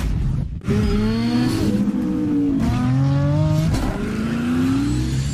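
Engine revving sound effect: the pitch sweeps upward in about four pulls over a steady low rumble, starting just under a second in after a brief dip.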